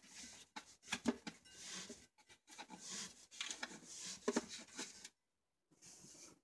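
Handling noise: soft irregular rustling with scattered light clicks and taps.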